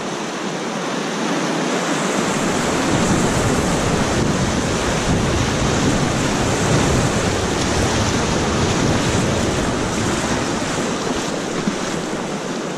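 Whitewater of a class III river rapid rushing around a raft running through it, with low rumbling buffeting on the microphone. The rush swells over the first couple of seconds and eases a little near the end.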